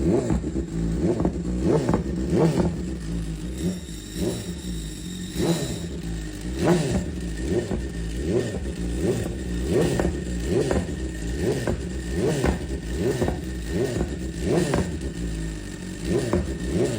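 BMW 1000 RR superbike's inline-four engine being revved in repeated short blips, its pitch rising and falling about once or twice a second.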